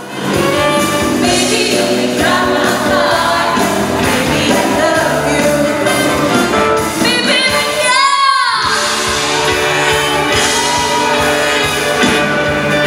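Female vocalists singing with a live pop-rock band, several voices over bass and drums. About eight seconds in the bass and drums drop out for a moment while a voice slides down in pitch, then the band comes back in.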